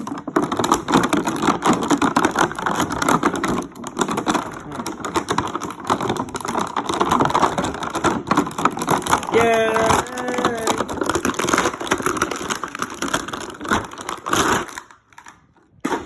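Plastic packaging being handled and opened, a dense run of crinkling and rustling full of small crackles that stops near the end.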